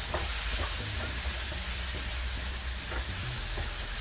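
Onion, tomato and arugula masala sizzling steadily in a pan on a portable burner while being stirred with a wooden spatula. A few light taps of the spatula against the pan come through.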